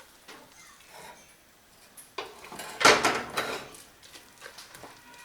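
Kitchen cookware clatter: faint scrapes, then a loud knock of a pot or utensil about three seconds in, followed by about a second of clattering and scraping as the thick rice-flour dough is worked in the pot.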